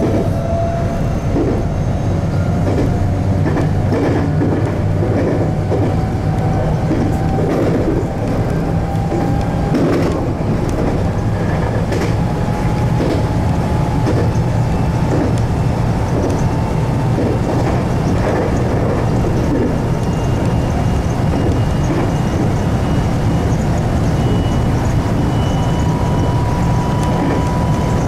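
JR West 521 series electric train running, heard from inside the front car: the traction-motor whine rises slowly in pitch as the train gains speed after a station stop, over a steady low hum, with the wheels clicking over rail joints.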